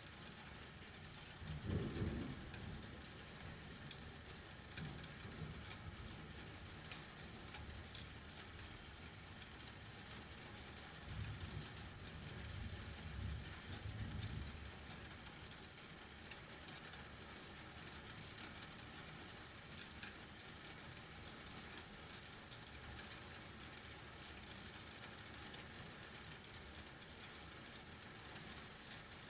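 Steady rain with many sharp drop ticks, and low thunder rumbles about two seconds in and again for a few seconds later on.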